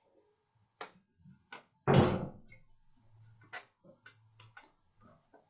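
One loud thump about two seconds in that dies away over about half a second, among scattered light clicks and knocks.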